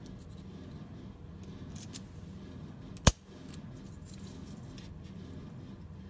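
Key working in a brass padlock: a few faint metallic ticks as it turns, then one sharp, loud click about three seconds in as the shackle releases and springs open.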